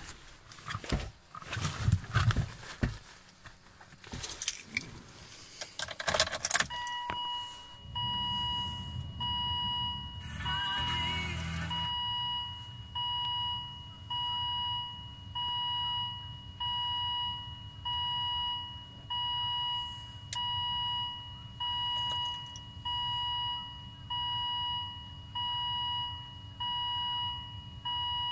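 Keys rattling and handling clicks in a Volvo S80's cabin. About seven seconds in, a dashboard warning chime starts as a steady electronic tone, then settles into an even beep about once every 1.2 seconds over a low hum. The engine is not running.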